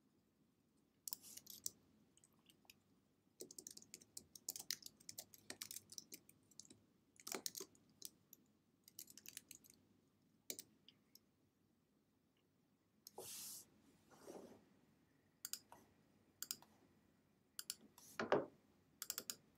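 Faint typing on a computer keyboard: irregular bursts of key clicks with short pauses between them.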